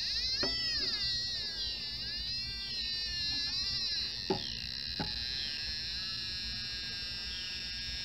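Trifield TF2 EMF meter's built-in speaker sounding the radio-frequency field picked up at a smart meter: a cluster of high electronic tones that waver up and down in pitch, then settle into a steadier high tone after about four seconds. Two light clicks come about four and five seconds in.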